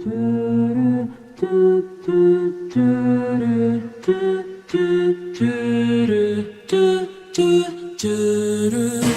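Background music: layered wordless voices humming chords in short, repeating phrases.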